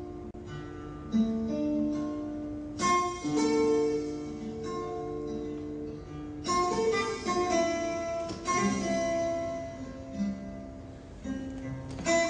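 Acoustic guitar music: single plucked notes ringing on, with fuller strummed chords coming in three times, about three seconds in, about six and a half seconds in, and near the end.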